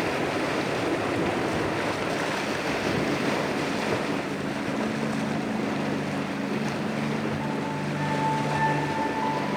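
Waves washing on a lake shore with wind. Soft sustained music notes come in about halfway through and continue under the surf.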